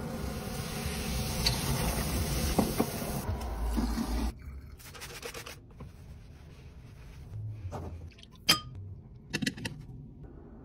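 Stainless steel kitchen sink being cleaned. A steady hiss runs for about four seconds and cuts off suddenly. Then comes softer rubbing of a cloth towel on the chrome faucet, with a few light clicks near the end.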